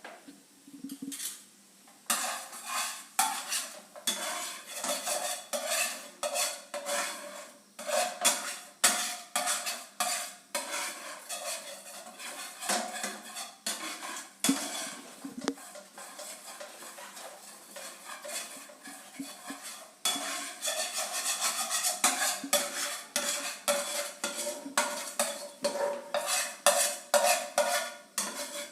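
A metal utensil stirring and scraping a gravy in a pan: rapid, irregular clinks and scrapes of metal on metal, several a second.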